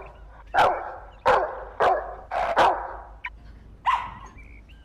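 Small dog barking loudly through a bark amplifier, a loudspeaker horn strapped to its back: about six sharp barks, with a longer gap before the last one.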